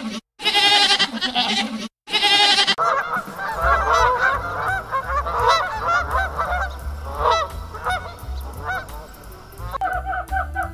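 Short repeated bleats with a wavering pitch, cut together with abrupt gaps. About three seconds in they give way to a flock of waterfowl calling over each other in many short honks.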